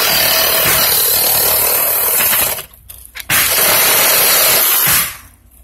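Reciprocating saw running as its blade cuts through PVC pipe. It stops briefly about two and a half seconds in, runs again for about a second and a half, then stops near the end.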